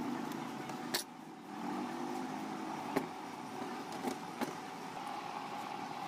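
Sharp metallic clicks and knocks from tools and brass fittings being handled while a charging line is fitted to a refrigerator compressor's pump: one about a second in, another at about three seconds, and two lighter ones just after four seconds, over a steady background hum.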